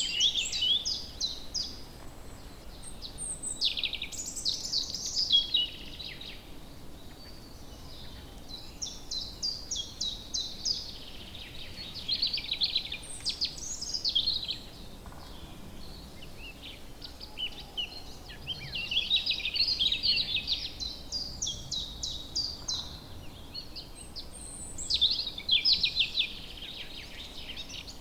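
Songbirds singing: fast trilled phrases of high notes coming every few seconds, over a faint steady background hiss.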